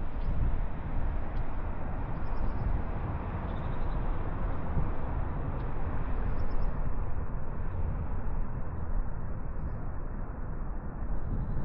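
Steady low outdoor rumble of background noise, with a few faint high chirps.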